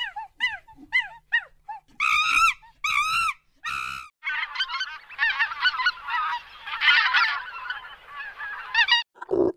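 Domestic waterfowl calling: a run of short falling calls, then three loud honks about a second apart, then a flock honking and chattering together for several seconds, with a few short calls near the end.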